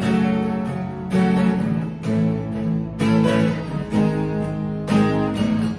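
Two acoustic guitars strumming chords together in a steady rhythm, with a heavier accented strum about once a second, and no singing.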